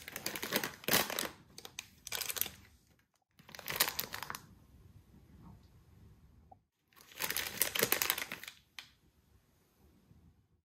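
Plastic snack packets crinkling as they are pushed into a lunch bag, in four spells of a second or so with quieter gaps between.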